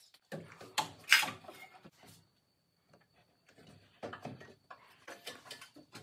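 Knocks, clunks and scrapes of an aluminium radiator and intercooler pack being set into a Mercedes S123's front end and worked into place against the radiator support. The loudest knock comes about a second in, then a quiet spell of over a second before the handling resumes.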